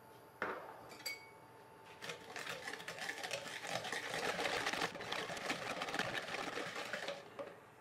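Wire balloon whisk beating egg yolks and sugar in a clear mixing bowl: a fast, steady clicking of the wires against the bowl that starts about two seconds in and stops near the end. Before it come a couple of light knocks.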